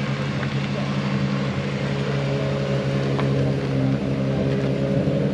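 An engine running at a constant speed, making a steady, even-pitched hum.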